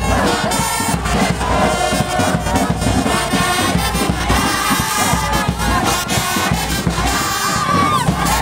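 Brass-band music playing over a shouting crowd.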